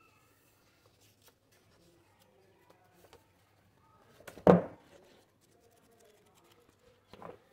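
Pages of a paperback school workbook being turned by hand: faint paper rustling, one loud page flip with handling noise about four and a half seconds in, and a shorter one near the end.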